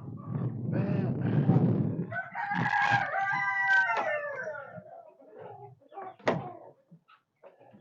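A rooster crowing once, a call of about two and a half seconds that drops in pitch at the end, after a loud low noise in the first two seconds. A short sharp call follows about six seconds in.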